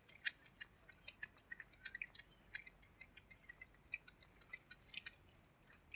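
A cat eating: faint, irregular wet clicks of chewing and licking, several a second.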